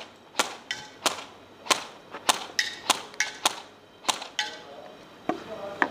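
Airsoft guns firing: a quick, uneven string of sharp snaps, about two to three a second, with a gap of about a second before two last shots near the end.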